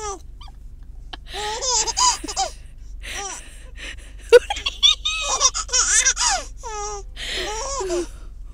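A baby laughing in repeated short bursts of giggles and squeals, starting about a second in, over the steady low rumble of a moving car.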